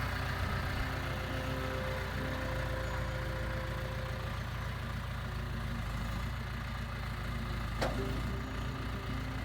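Tractor engine running steadily, with a single sharp knock near the end.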